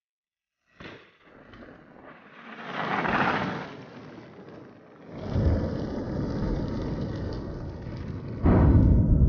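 Cinematic sound design for a ride through fire: after a moment of silence, a whoosh swells and fades about three seconds in, then a deep, steady rumble of fire sets in about five seconds in and jumps louder near the end.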